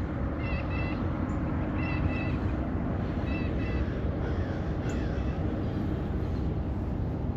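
Oilfield machinery running with a steady low hum, while crows caw in short runs of calls several times over it.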